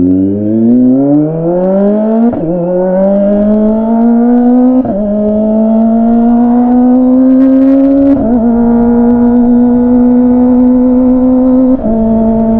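Kawasaki ZX25R's 250 cc inline-four, fitted with an aftermarket R11 Villain exhaust, accelerating up through the gears. The note climbs, then dips briefly at four clutchless quick-shifter upshifts, at about 2, 5, 8 and 12 seconds in. In the last gears it holds a steadier pitch.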